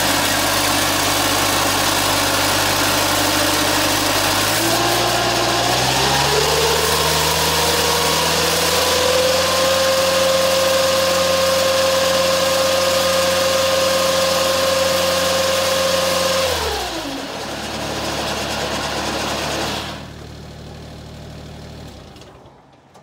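Engine of a Grasshopper mower carrying a snow blower attachment, idling, then revved up about five seconds in and held at a steady high speed. Well past halfway it drops back quickly, runs low for a few seconds and dies away near the end.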